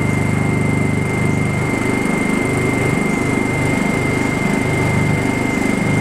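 Two Honda 2000-watt inverter generators, one a Honda Companion, running together at low idle on economy throttle with no load. It is a steady low engine hum that swells and dips as the two engines drift in and out of step, with a thin steady high whine over it.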